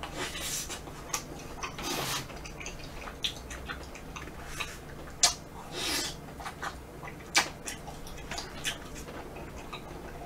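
Close-miked mouth sounds of eating soft ice cream and chewy rice-cake ice cream: wet smacking, sucking and chewing, with longer slurps about two and six seconds in and a few sharp clicks between.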